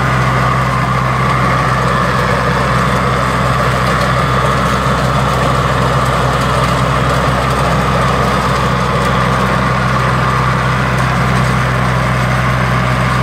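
Yanmar F235D compact tractor's diesel engine running steadily while driving a rear-mounted rotary tiller through the soil.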